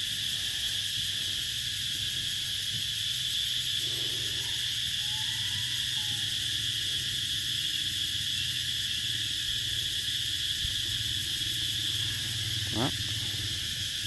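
Steady chorus of insects, a continuous high-pitched drone, over a low steady hum; a faint short call rises and falls about five seconds in and another brief rising call comes near the end.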